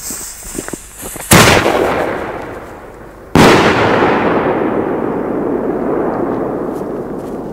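50 mm singleshot aerial firework shells: faint crackles, then two loud bangs about two seconds apart, each followed by a long echoing rumble.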